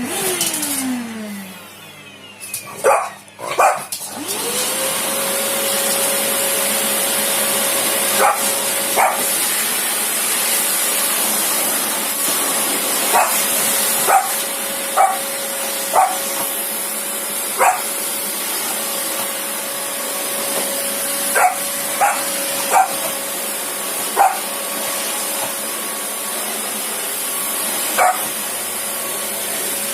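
A household vacuum cleaner motor whines down at the start, then starts up about four seconds in and runs steadily. Over it a French bulldog puppy gives about a dozen short single barks at uneven intervals.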